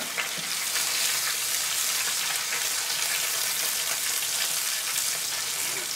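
Bacon-wrapped roast sizzling steadily in its own fat on the hot grate of an oval ceramic kamado grill.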